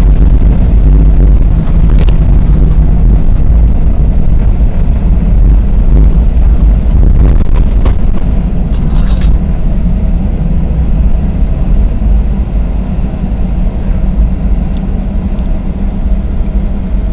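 Loud rumble of a Boeing 737-800's CFM56 engines and landing gear heard inside the cabin during the landing rollout on a wet runway, fading gradually as the aircraft slows. A few light cabin rattles about two seconds in and again around seven to nine seconds in.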